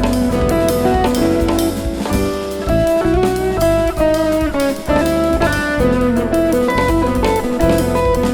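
An instrumental jazz band playing live: a guitar plays a busy line of notes over bass, keyboards and a drum kit.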